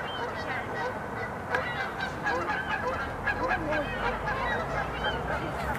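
A large flock of geese honking, many calls overlapping in a continuous chorus.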